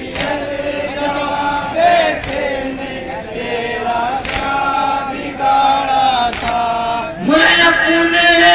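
Men chanting a Shia noha (lament) together in long sung lines, with sharp chest-beating (matam) strikes about every two seconds.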